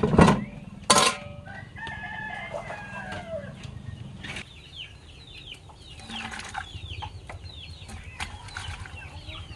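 Two loud knocks in the first second. Then a rooster crows, and chickens keep up a run of short, high, falling calls.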